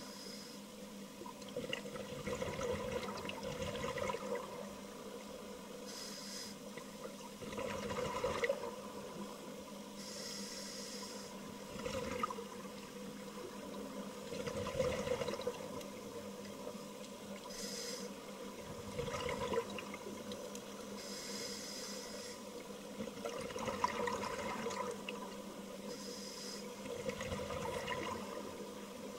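Scuba diver breathing through a regulator underwater: a high hiss on each inhale, then a gurgling rush of exhaust bubbles on each exhale, repeating every few seconds over a faint steady hum.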